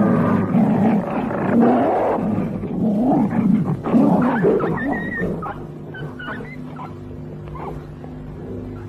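Pack of wolves snarling, growling and yelping in a cartoon soundtrack. After about five seconds the calls thin out to a few scattered yelps over low, steady held tones.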